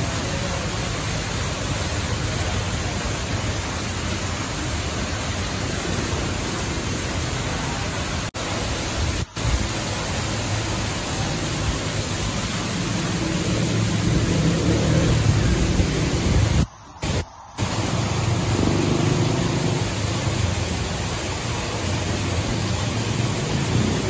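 Steady rushing splash of a small waterfall pouring into a pond, cutting out briefly a few times.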